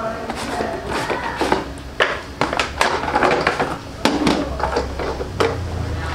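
Cardboard toy-helicopter box being opened and handled: scraping and rustling of cardboard, with several sharp knocks as the box and its contents are moved and set down.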